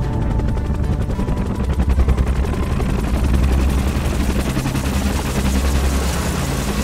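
A fast, even rattle like machine-gun fire or rotor chop, strongest in the first few seconds, over electronic music with a steady deep bass line.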